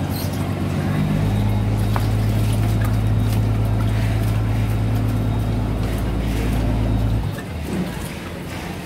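A fishing boat's engine running. It picks up to a louder, steady hum about a second in and drops back down about seven seconds in, as when the throttle is opened to move the boat along the quay and then eased off.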